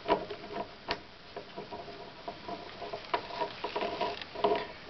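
Light metallic clicks and taps from handling the piston and lock nut on the rod of a hydraulic tie-rod cylinder as the nut is fitted by hand. There is a sharp click just after the start and another about a second in.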